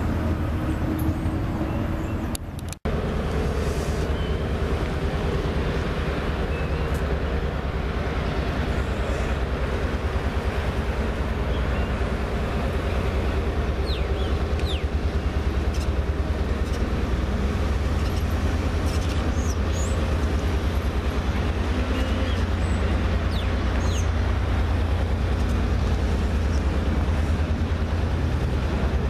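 Steady low outdoor rumble of distant traffic, with a few faint high chirps now and then; the sound cuts out briefly about two and a half seconds in.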